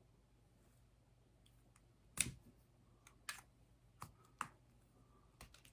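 A handful of small, sharp clicks from handling a Tombow Zoom 505 mechanical pencil, about five at uneven spacing, the loudest about two seconds in.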